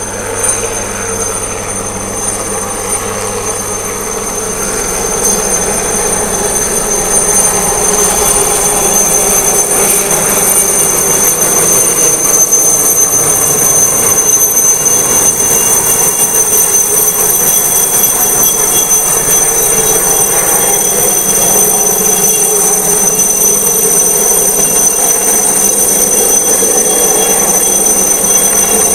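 A helicopter flying low overhead: a steady high turbine whine over the rotor noise, growing louder over the first several seconds and then holding.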